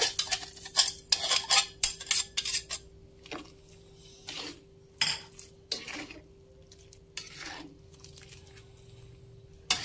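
Metal ladle clinking and scraping against a glass plate and the rim of a wok as seasoning is tipped in, then a spatula stirring soup in the wok with scattered knocks against the pan. The clinks come thick and fast for the first few seconds and thin out to single knocks after, over a faint steady hum.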